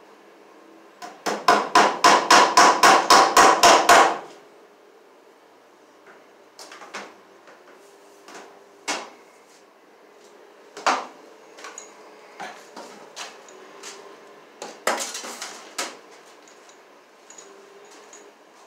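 Hammer driving a cable staple into wooden pole-barn framing: about fourteen quick blows, four to five a second, over about three seconds. Then scattered lighter knocks and rustles as the electrical cable is handled and pulled along the wall.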